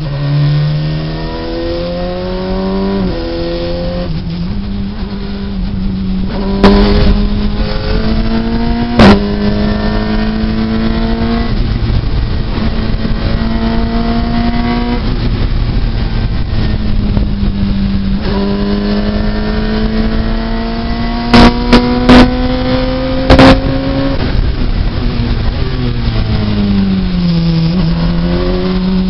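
Radical SR3 RS's motorcycle-derived four-cylinder engine under hard acceleration, with its pitch climbing through each gear and dropping sharply at the upshifts. The pitch falls as the car brakes and downshifts shortly before the end, then climbs again. A few sharp, loud knocks come about 7 and 9 seconds in, and there is a cluster of them a little past 20 seconds.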